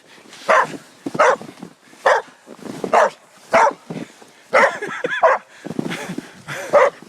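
Dog barking repeatedly: about ten short barks, one every half second to second.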